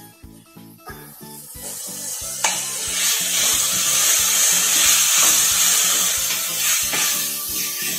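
Boiled broccoli and chopped onion sizzling as they are stir-fried in oil in a nonstick kadai, a wooden spatula stirring and scraping them. The sizzle grows sharply louder about two and a half seconds in and eases a little near the end.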